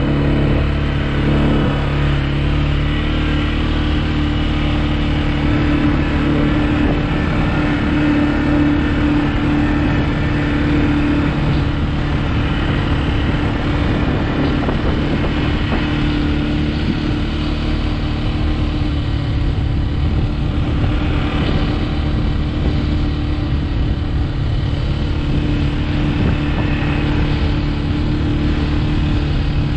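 CFMoto ATV engine running steadily as the quad drives across rough grass, its pitch holding nearly even throughout.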